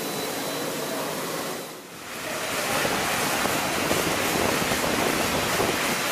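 High-pressure water spraying from a robotic aircraft-washing arm's nozzle and splashing onto the airframe, a steady hiss of water. It dips briefly just before two seconds in, then comes back louder.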